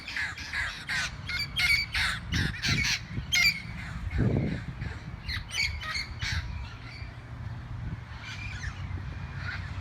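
A flock of feral parrots squawking: a quick run of short, harsh calls for the first few seconds, then scattered calls.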